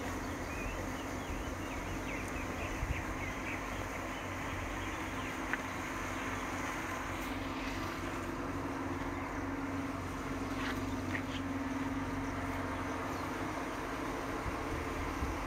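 Steady open-field outdoor ambience: a constant low hum that swells slightly midway, under a noise bed, with a few faint bird chirps in the first seconds and a couple of light clicks.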